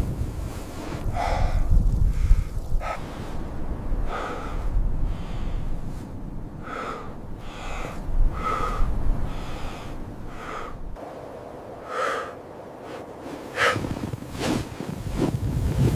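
Heavy breathing: a series of short, sharp breaths at irregular intervals of about a second, over a low wind rumble that dies away after about ten seconds.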